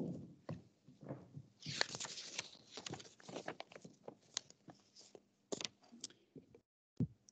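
Faint rustling and a scattered string of small clicks and knocks from things being handled, with a longer rustle about two seconds in.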